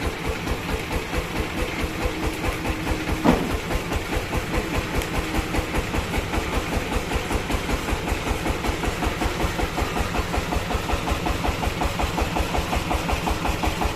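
Band sawmill's engine running steadily at an even, pulsing beat. There is a single sharp knock about three seconds in.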